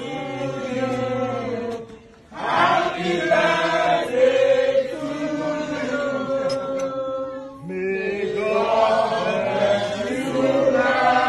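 A group of people singing together in chorus with long held notes, pausing briefly about two seconds in.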